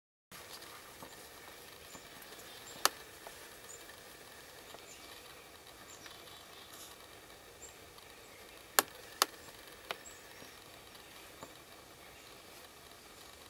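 Quiet woodland ambience with faint rustling and a few sharp snaps or clicks: one about three seconds in, then two close together about nine seconds in. There are faint high chirps now and then.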